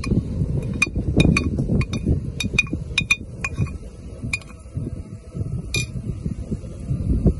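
Metal clinking on a stainless steel pan: a dozen or so sharp, irregular clinks, each with a brief ring, coming thick at first and thinning out about halfway through, over a low steady rumble.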